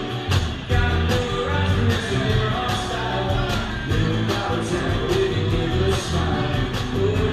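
Live band playing a cover song on electric guitars, bass and drums, with a steady drum beat and singing.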